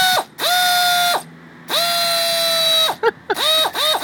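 Pneumatic air ratchet running on air from a car tyre: a high whine of the air motor in bursts of about a second, pitch sagging slightly as each burst runs. Near the end it gives a few quicker, shorter bursts.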